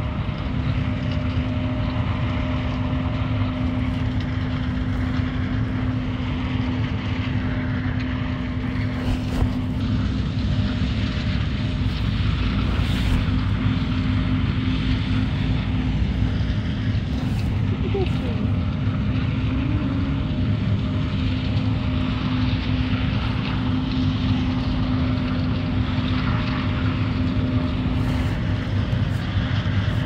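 A vehicle running steadily: a continuous low rumble with a steady hum, holding the same level throughout.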